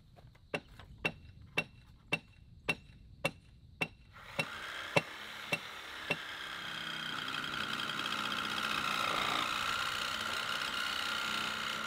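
A hammer striking steel, about two blows a second, each with a ringing clang. From about four seconds a loud, steady mechanical noise swells in over the blows and dies away near the end.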